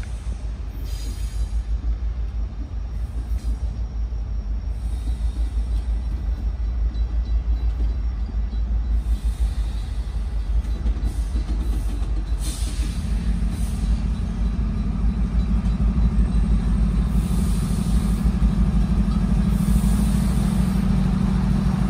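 Three Union Pacific diesel-electric locomotives running light and approaching slowly. A deep diesel rumble grows louder, and a steady engine drone joins about halfway through as the lead unit draws near.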